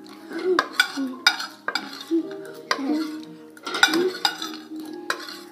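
Spoons clinking and scraping against plates as several people eat quickly, a string of sharp clicks at uneven intervals, with short low hums and mouth noises between them.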